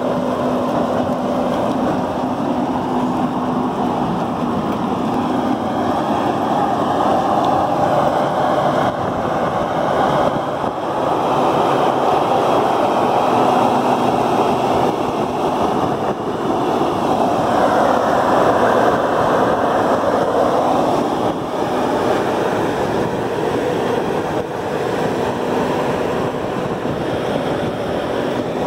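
Evoquip Bison 280 tracked jaw crusher running: a loud, steady din of its diesel engine and machinery that swells and eases a little every few seconds.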